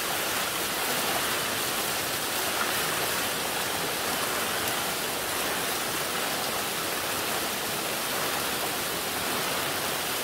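Small hot-spring cascade pouring over mineral-crusted rock into a thermal pool: a steady, even rush of falling and splashing water.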